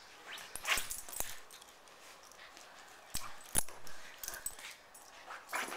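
Two small dogs, a cockapoo and a Maltipoo, scuffling over a bone on a dog bed: short bursts of rustling and scrabbling, with two sharp knocks about half a second apart a little after three seconds in.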